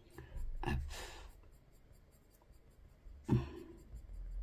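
A person's breath and throat sounds: a sigh-like exhale about a second in, then a short, sudden throaty sound a little after three seconds, with faint room tone between.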